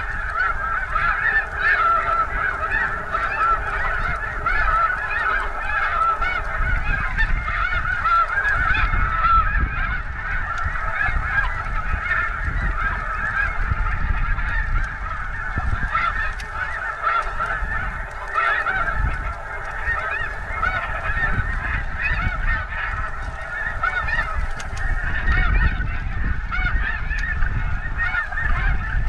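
A large flock of snow geese calling all at once from the water, a dense, unbroken din of many overlapping high yelps, with a low rumble underneath.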